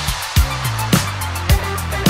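Background music with a steady kick-drum beat, about three beats in two seconds, over a bass line and hi-hat.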